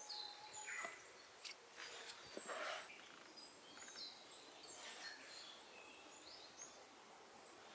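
Faint outdoor ambience with scattered distant bird chirps and short whistles.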